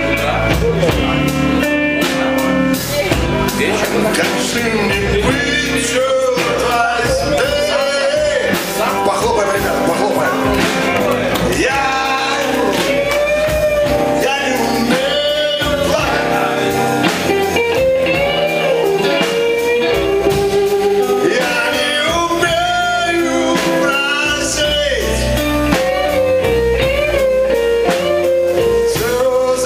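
Live band music: electric guitars playing while a man sings into a microphone.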